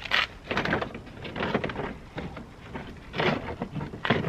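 Plastic front bumper cover of a Ford Focus ST being pulled and worked free by hand, giving short irregular bursts of creaking, scraping and clicking as it shifts on its clips.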